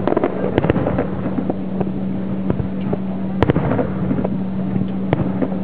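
Fireworks display: aerial shells launching and bursting, a handful of sharp bangs with the loudest about three and a half seconds in, over a steady low hum.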